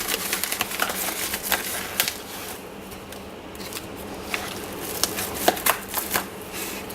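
Packaging being opened and handled by hand: irregular rustling and crinkling with scattered sharp clicks and taps.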